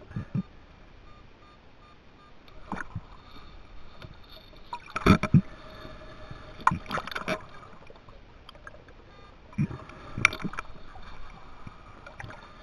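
Muffled knocks and bumps heard underwater, irregular, the loudest a close pair about five seconds in, over a faint steady hum.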